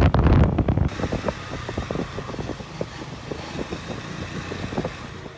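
Outdoor street noise with vehicle traffic. Loud wind buffeting on the microphone fills the first second, then it changes abruptly to a steadier hiss of traffic with scattered small clicks.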